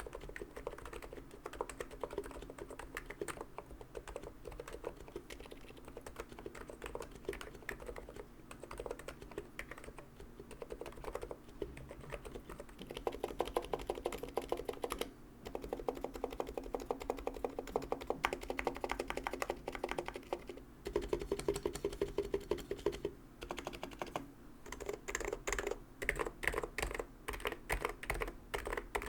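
Typing on a Niz Plum X87 tenkeyless keyboard with electro-capacitive, Topre-style switches: a fast, continuous run of keystrokes, very quiet with a deep sound. The typing grows denser and louder about twelve seconds in, breaks off briefly a few times, and turns into more spaced-out presses near the end.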